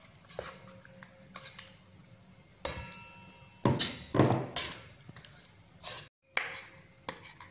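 Raw chicken pieces going into thin wet batter in a stainless steel bowl and being turned over by hand: wet slaps and squelches, with a few knocks on the metal bowl, the loudest about two and a half seconds in, leaving it ringing briefly.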